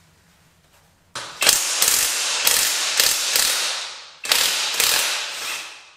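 Ratchet wrench cranked in quick back-and-forth strokes, clicking in two runs with a short pause between, loosening the engine mounting bolts of a Yamaha XT225 motorcycle.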